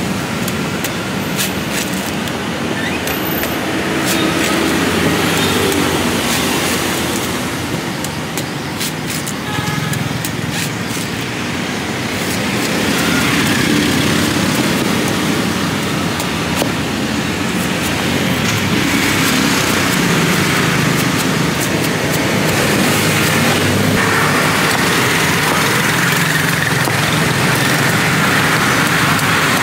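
A cleaver chopping and shaving the husk off a young green coconut in repeated sharp chops, over a steady rumble of road traffic.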